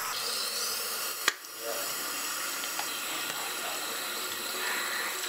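Bathroom sink faucet running, its stream splashing steadily into the basin. A single sharp click sounds about a second in.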